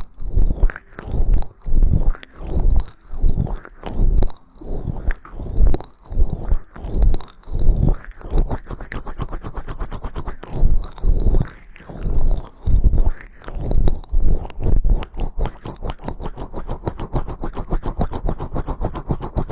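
ASMR trigger sounds made right at the microphone: rhythmic rubbing or scraping strokes a little more than one a second, changing about halfway to rapid, dense clicking.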